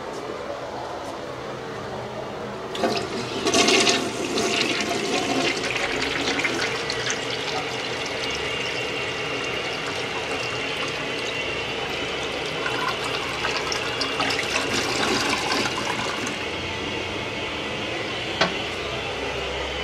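American Standard Cadet toilet with its original large tank flushing: a sudden rush of water about three seconds in, then a long swirling drain and refill with a steady hiss that eases off around sixteen seconds. A single sharp click near the end.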